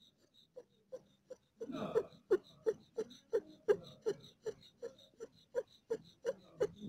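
A cat in labour panting hard with her mouth open: quick, even breaths with a short pitched sound on each one, about three a second. They start faint and grow louder about a second and a half in. This is the laboured breathing of a queen straining through birth contractions and in pain.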